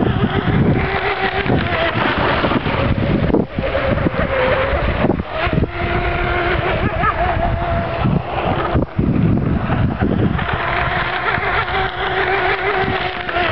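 Electric RC hydroplane with a UL-1 motor running at speed on the water, its motor and propeller whine wavering and gliding in pitch as the boat passes and turns. Wind noise on the microphone runs underneath.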